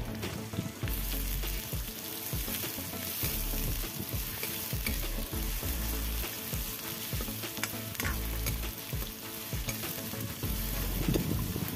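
Chopped onions sizzling as they fry in hot oil in a steel kadai, with a steel spoon scraping and stirring them, giving scattered clicks over the steady hiss.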